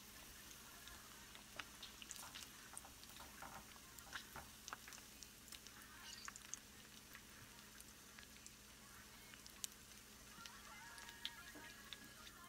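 Pork ribs frying in hot oil in a pan: a faint steady sizzle with scattered crackles and pops of spattering oil.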